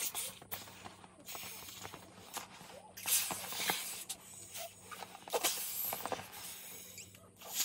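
An inflatable vinyl four-star Dragon Ball being blown up by mouth: several separate breathy puffs and hisses of air at its valve, with small clicks and rubbing as the ball is handled.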